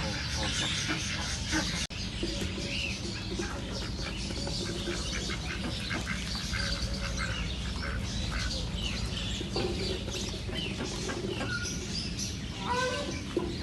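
A group of ducks quacking, many short calls overlapping one another over a steady low background noise. The sound briefly drops out about two seconds in.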